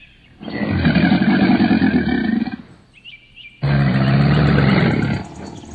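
Crocodile bellowing: two long, low, growling calls, each about two seconds, with a short pause between them.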